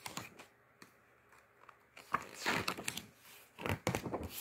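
Pages of a paper picture book being turned by hand: paper rustling, with two swishes of a page turning, about two seconds in and again about three and a half seconds in.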